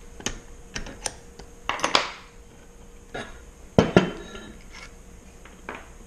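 Irregular metal clicks and clinks as a wrench works the bolts of an aircraft wheel's brake caliper and the loosened caliper parts are handled, with two louder knocks about four seconds in.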